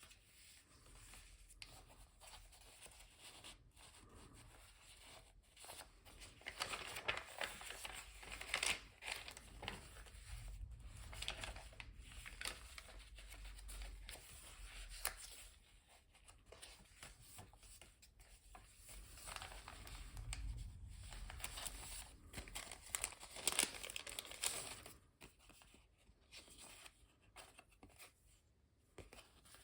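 Paper pages of a handmade junk journal being handled, rustling and crinkling in irregular spells.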